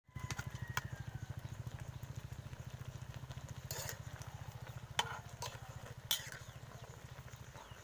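A metal spatula clinks and scrapes against a wide cooking pan a few times as bopis is stirred, over the steady low, rapid throb of a small engine running.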